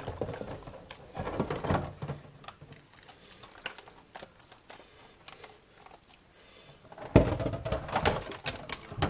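Dishes being washed by hand in a sink of soapy water: plastic food processor parts knocking and clattering against each other and the sink. A few knocks come about a second and a half in, then it goes quiet for a while, and a louder run of clattering starts about seven seconds in.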